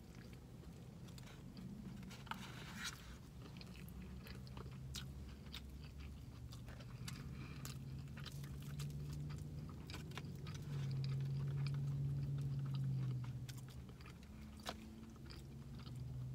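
A person chewing and biting into a fried chicken sandwich and waffle fries close to the microphone, with many short wet mouth clicks and smacks. A low steady hum swells for a couple of seconds about eleven seconds in.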